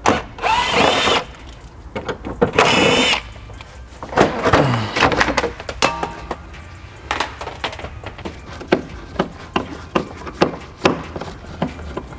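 Snap-on impact wrench running in two bursts of about a second each near the start, with a shorter third burst about four seconds in, then scattered clicks and knocks.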